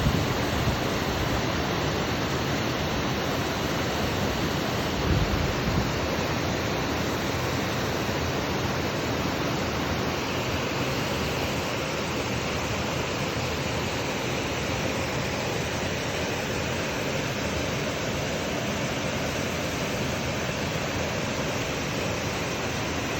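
Waterfall: steady, loud rush of falling water, with a brief low bump on the microphone about five seconds in.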